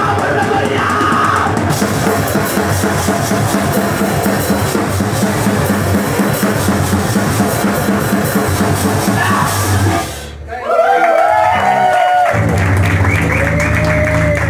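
Punk band playing loud and live: pounding drum kit with distorted guitar. About ten seconds in the playing breaks off briefly under high sliding tones, then the full band crashes back in.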